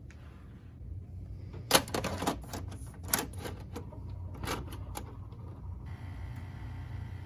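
A run of irregular sharp clicks and light knocks over a low steady hum.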